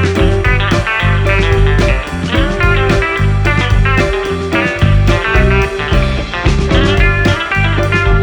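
Background music: guitar-led rock with a steady beat and heavy bass.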